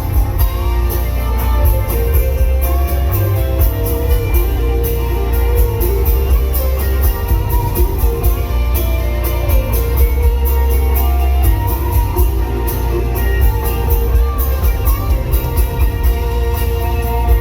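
Live rock band playing, with guitars over a heavy, booming low end.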